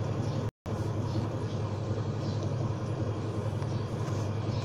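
Steady low background hum with hiss, cut by a brief complete dropout about half a second in.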